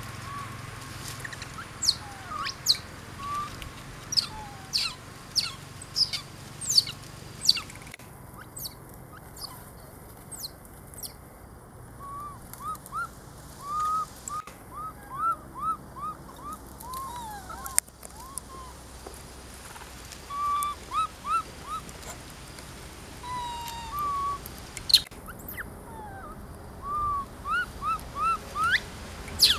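Young macaques giving short, high-pitched squeaky calls, one after another in runs of several, loudest in the second half. Quick, sharp high chirps come in the first few seconds.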